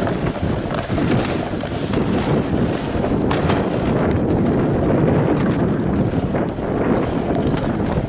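Steady rumble of wind on the microphone of a moving dog sled, mixed with the hiss of the sled's runners sliding over packed snow.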